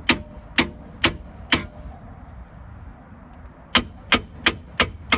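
Three-pound sledgehammer striking a rusted, seized brake caliper on a 1997 Jeep Grand Cherokee, metal on metal: four blows about half a second apart, a pause of about two seconds, then five quicker blows. The caliper has frozen itself to the brake pad from the vehicle sitting, and the blows are meant to shock it loose.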